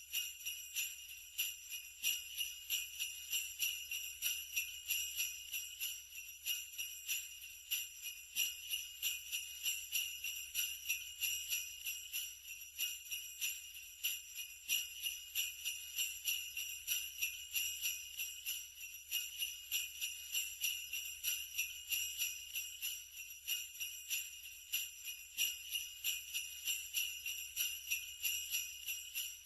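Sleigh bells shaken continuously in a quick, even rhythm, giving a bright, high jingle that is struck afresh several times a second.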